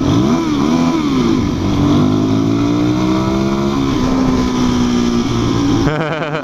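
Suzuki DR-Z400 single-cylinder four-stroke engine heard from the riding motorcycle: the pitch dips and rises in the first second, climbs steadily under acceleration, drops sharply at a gear change about four seconds in, then holds steady.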